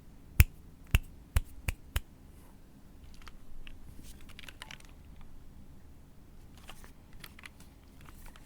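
Custom 60% mechanical keyboard with an aluminium case and POM plate, no foam, being typed on: five loud, sharp key strikes in the first two seconds, then a run of lighter, irregular keystrokes.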